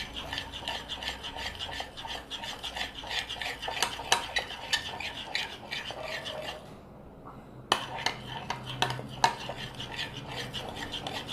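A utensil stirring a thick slime mix of glue, shaving foam and cream in a bowl: fast, continuous scraping and clicking against the bowl, which stops for about a second past the middle and then starts again.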